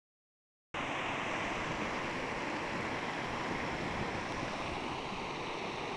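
Rushing water of a small river cascade pouring over rocks: a steady, even rush that starts suddenly under a second in.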